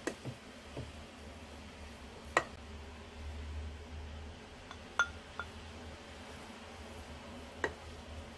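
Plastic rice paddle stirring and scooping cooked rice in a rice cooker's inner pot and knocking against the pot and a bowl: a few sharp clinks, the loudest about two and a half and five seconds in, the one at five seconds with a short ring. A steady low hum underneath.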